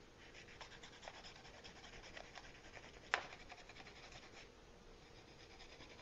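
Pencil point scratching and rubbing on paper laid over a plastic power strip, pressing over the strip's mounting holes to mark them for a template. Faint, with one sharper tap about three seconds in.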